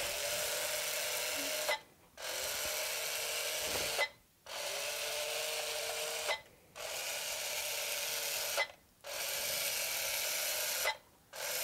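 Bee-Bot floor robot's small drive motors whirring through six programmed steps, three forward and then three back. Each step is a steady whir of just under two seconds, with a short silent pause between steps.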